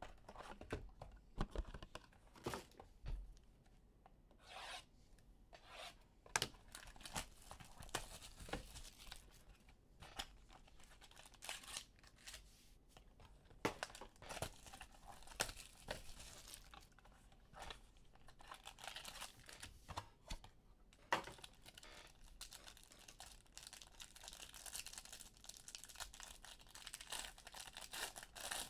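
Trading card packs torn open and cards handled: wrappers tearing and crinkling, and cards rubbing and sliding against each other, with scattered sharp clicks.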